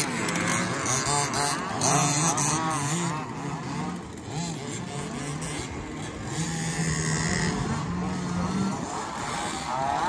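Radio-controlled 2WD off-road buggies racing on a dirt track, their motors whining up and down in pitch as they accelerate and brake.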